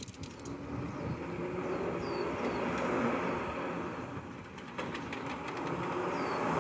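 A motor vehicle's rumble swells and eases twice, loudest about three seconds in and again near the end, with a few short bird chirps over it.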